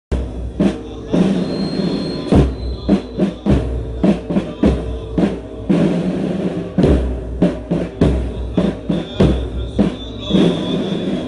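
Drums beating among a crowd, deep thumps and sharper strokes at an uneven pace, with voices behind them.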